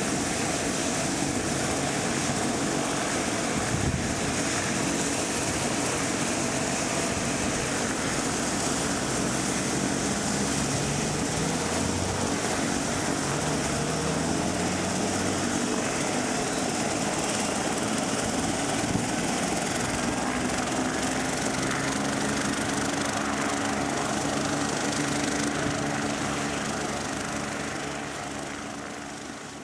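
Turbine helicopter running on the ground with its main rotor turning: a steady turbine whine and rotor noise, with a few tones rising in pitch partway through. It fades out over the last few seconds.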